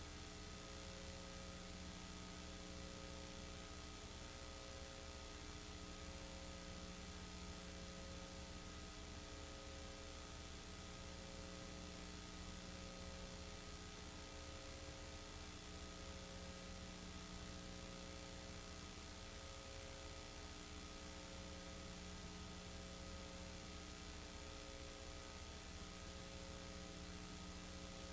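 Faint, steady electrical hum and buzz with several steady tones, one of them pulsing on and off every few seconds.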